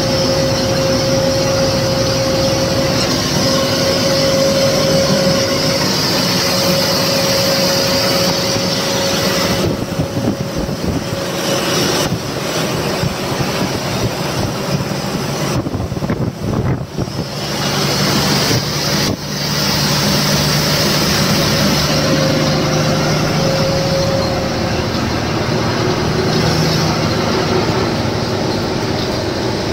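Lorry running on the road: steady engine and road noise with a whine through the first ten seconds or so, a few short dips in level around the middle, then a lower steady hum.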